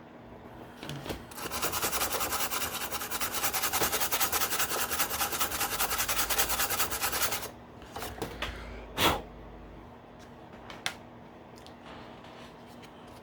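Fast, even back-and-forth rubbing on the clear plastic windshield of a G.I. Joe BUGG toy for about six seconds, as the dirty part is wiped clean. A single sharp plastic click follows about nine seconds in, with a few faint ticks after it.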